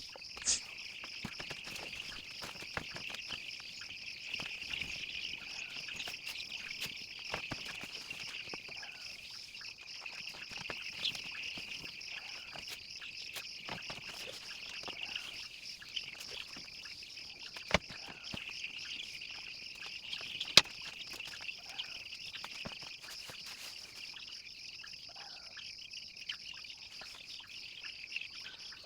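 Dense, continuous peeping of a flock of week-old broiler chicks, with a few sharp clicks, the loudest about 18 and 20 seconds in.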